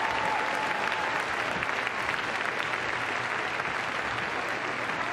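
A large crowd applauding steadily, with a single held tone that stops about a second in.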